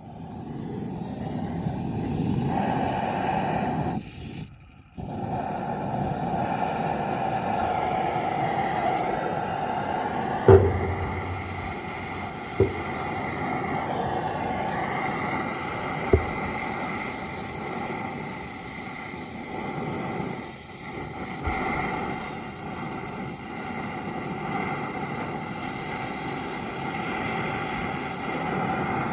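Welding on a condenser: a steady hissing buzz that breaks off for about a second some four seconds in and then resumes, with three sharp clicks later on.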